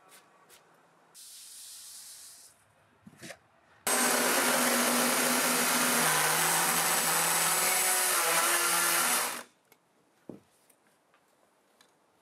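An electric power tool runs for about five seconds, starting and stopping abruptly, its motor hum dropping in pitch partway through as if under load. A brief hiss comes a few seconds before it.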